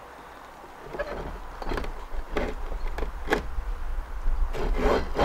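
A heavy chrome Lofrans anchor windlass is set down and shifted on a fibreglass deck: a series of knocks and scrapes as its metal base is slid into place, with a louder knock right at the end. A low rumble runs under it from about a second in.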